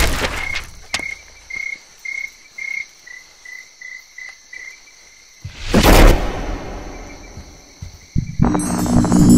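Cricket chirping in short pulses about twice a second, then a loud rushing swell about six seconds in that fades over a couple of seconds, and music with held notes beginning near the end.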